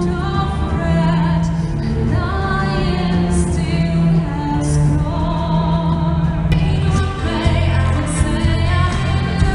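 A woman singing solo into a microphone over instrumental accompaniment, amplified on stage. About two-thirds of the way through the music changes abruptly to a different passage.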